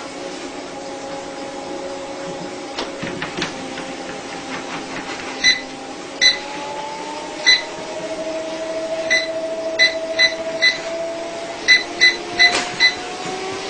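A machine's electric motor hums steadily, its pitch rising slowly around the middle and again near the end. About eleven short, high electronic beeps, like button presses, sound at uneven intervals through the second half.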